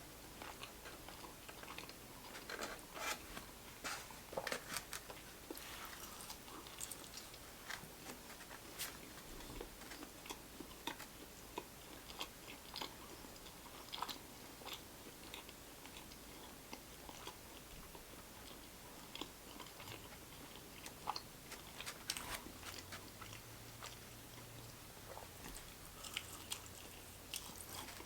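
A person biting and chewing crunchy fried food close to the microphone, with irregular crisp crunches.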